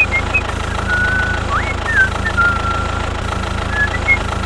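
The small engine of a DIY mini tractor runs steadily with a low, even hum, and a few short high chirps sound over it.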